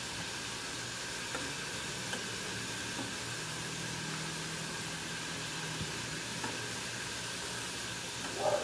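Water at a rolling boil in a small pan with carrots and broccoli, a steady bubbling hiss. A few light clicks come from metal tongs touching the pan as the broccoli is lifted out.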